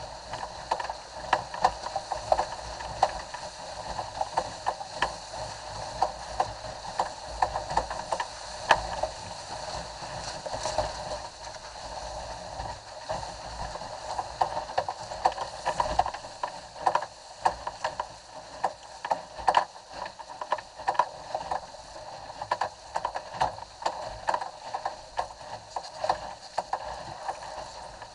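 Water rushing and splashing along the hull of a Cherub sailing skiff moving fast through chop, with frequent sharp slaps and knocks of spray and waves against the boat.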